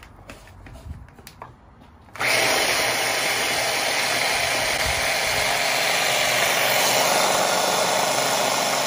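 A few light clicks, then an electric hand blender on its chopper bowl switches on about two seconds in and runs steadily, blitzing mint, rosemary, garlic and oil into a wet herb paste.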